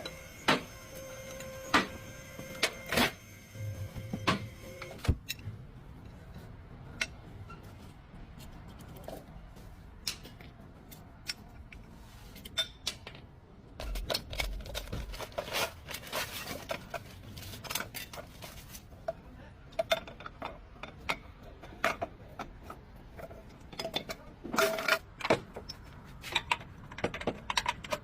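Irregular metallic clicks, clinks and knocks of hand tools and metal parts being handled, with a steady tone for the first few seconds and a dull thump about halfway through.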